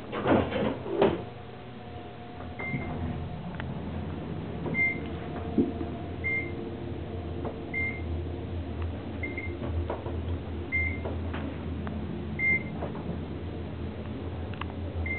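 Otis traction elevator running: a steady low hum through the cab with a short high beep about every one and a half seconds, typical of a floor-passing tone as the car travels. There are two knocks in the first second.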